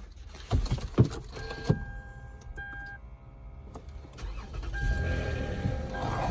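Lexus ES 350's 3.5-litre V6 starting about four seconds in and settling into a steady idle. Before it, a few sharp clicks and a steady warning chime beeping in the cabin.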